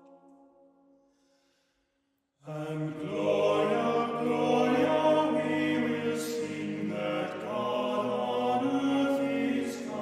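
A passage of music fades out, then after a brief silence music of slow, held notes begins again about two and a half seconds in.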